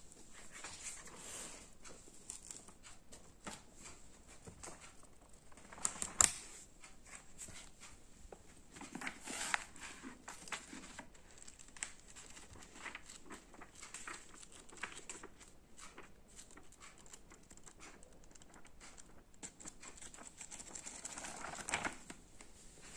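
Book pages rustling and crinkling as a Persian kitten bites and paws at them and a hand turns them, with scattered soft taps and one sharp click about six seconds in.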